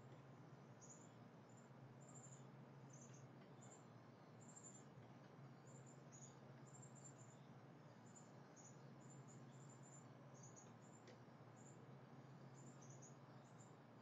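Faint, high-pitched chirping: short chirps a few times a second at irregular spacing, over a low steady hum.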